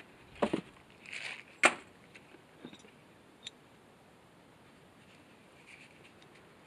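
Handling of a steel winch hook and its parts: a dull knock, a brief rustle and a sharp metallic clack within the first two seconds, then a few faint clicks.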